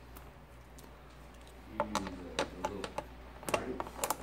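Socket wrench clicking in a quick, irregular series while an 8mm screw is backed out of the GY6 engine's plastic fan shroud, starting about two seconds in and getting busier near the end.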